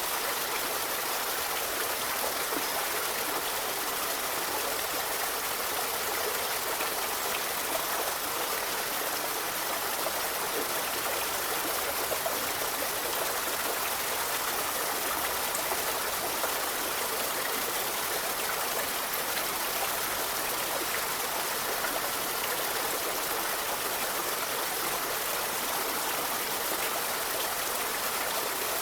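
A river or stream flowing over rocks, a steady rushing with fine splashing and trickling.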